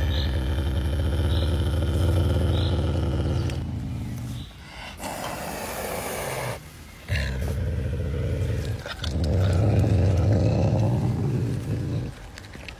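Caracal growling low in long stretches, with a hiss of about a second and a half some five seconds in, then growling again.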